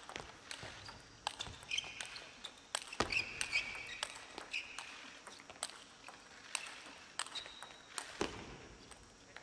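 Table tennis rally: the plastic ball clicking sharply off bats and table in quick, irregular succession, with a few harder hits. Several short high squeaks of shoes on the court floor come in between.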